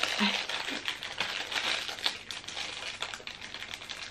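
Foil blind bag of a Funko Mystery Mini crinkling and crackling with many small clicks as it is squeezed and felt to guess the figure inside.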